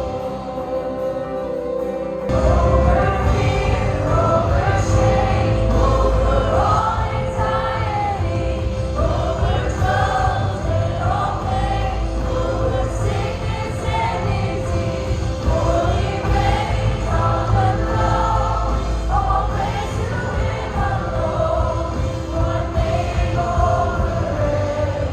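Christian worship song sung by a group of voices over a band, with a steady held keyboard note beneath; the bass and drums come in about two seconds in.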